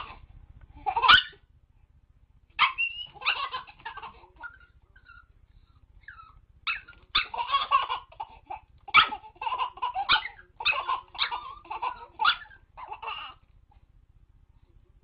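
A baby laughing in several separate fits of pulsed laughter with pauses between, the longest fit coming in the second half.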